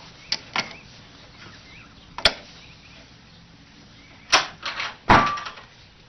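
Wooden puzzle box's latch and door clacking and knocking in a string of sharp knocks, the loudest about two seconds in and two close together near the end, as a cat works the latch to escape.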